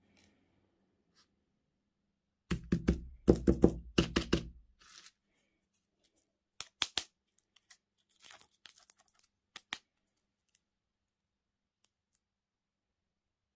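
Candy packaging being handled and torn open: a busy stretch of rustling and tearing with dull bumps against the table, then a few sharp clicks and short crinkles.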